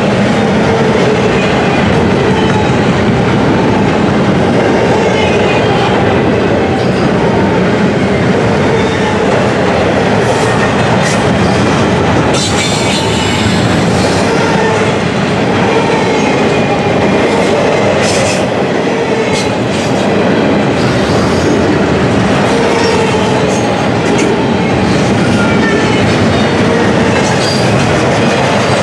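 Double-stack intermodal well cars rolling past on steel wheels: a loud, steady rumble of wheels on rail with clickety-clack, wavering squeals from the wheels, and a few sharp clanks around the middle.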